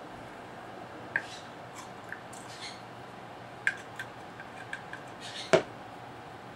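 Light metallic clicks and ticks of a small steel punch turning the sling swivel stud in a rifle's steel forearm cap to tighten it, with one louder metal clack near the end.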